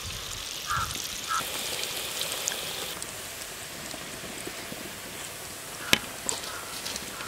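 Hot oil sizzling in a pan of fried fish pieces, a steady hiss as the pieces are lifted out with a wire skimmer. One sharp tap stands out about six seconds in.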